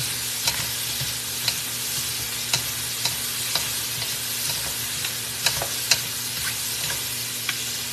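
Sliced vegetables sizzling in a hot wok on high heat, stirred and tossed with wooden spatulas that knock against the pan every half second to a second.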